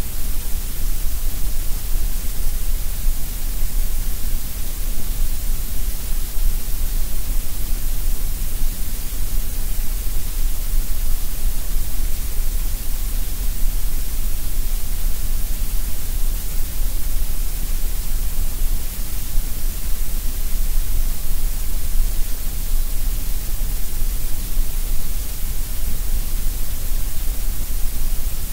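Steady, artificially generated colored noise: an even, unchanging hiss with a low rumble beneath it.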